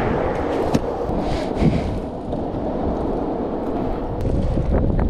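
Longboard wheels rolling on an asphalt path with wind buffeting the microphone, a steady rumbling rush. A couple of brief knocks come early, and more uneven rattles near the end.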